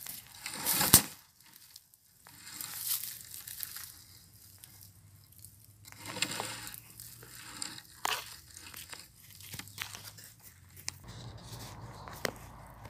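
Rustling and crackling with scattered sharp clicks, the loudest a snap about a second in.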